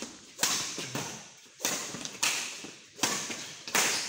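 Badminton rally: rackets striking a shuttlecock about five times, each a sharp smack that trails off in the hall's echo.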